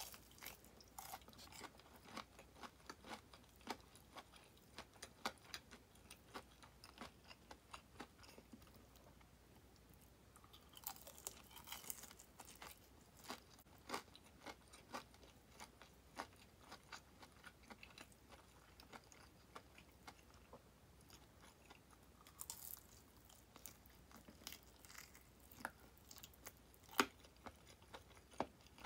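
Faint chewing and biting on crispy fried chicken drumettes: many small crunching clicks of the batter, with louder crunches around the middle and again about two-thirds through.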